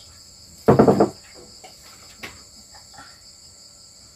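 Crickets chirring steadily in a high, even drone. About a second in, a short, loud vocal sound cuts in briefly, and a faint click follows about a second later.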